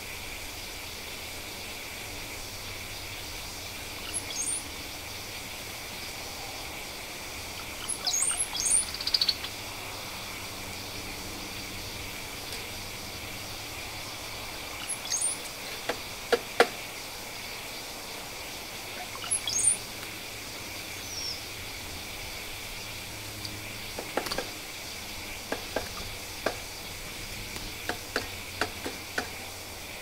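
Short, high bird chirps that sweep in pitch, scattered every few seconds over a steady outdoor hiss. Clusters of sharp taps and knocks come midway and near the end, from birds pecking and landing on hanging seed feeders.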